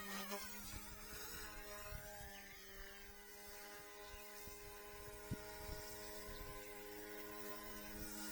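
Small direct-drive RC helicopter (Eachine E180) in flight, its motors and rotors making a faint, steady buzzing hum that dips slightly in pitch about a second in. A single light click about five seconds in.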